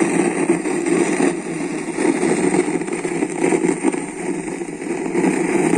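Home theater speaker system putting out a loud, rough bad noise instead of clear sound, wavering in strength without a break. The owner traces this fault to failing filter capacitors on the amplifier board.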